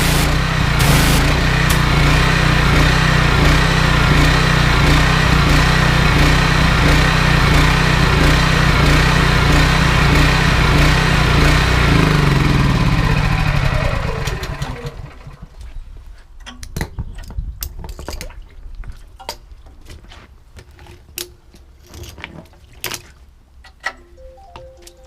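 Honda GX390 single-cylinder petrol engine driving a belt-driven pressure washer pump, running steadily, then shut off about twelve seconds in, its pitch falling as it winds down to a stop. Afterwards there are only scattered small clicks.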